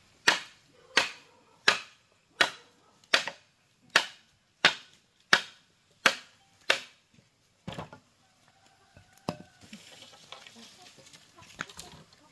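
Steady blows of a hand tool, ten in a row about one every 0.7 seconds, then two more slower strikes.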